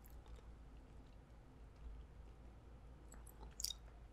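Mostly near silence with faint wet mouth sounds. Near the end come a couple of soft wet clicks as a Hot Cheeto–crusted fried piece is brought to the mouth and bitten into.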